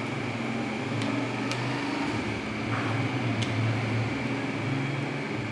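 Steady electric machine hum, low with a thin high whine over it, with a few faint light ticks.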